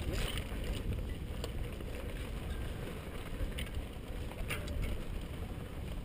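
Mountain bike ridden over a dirt singletrack: a steady low rumble of tyres and wind on the bike-mounted microphone, with a few sharp clicks and rattles from the bike.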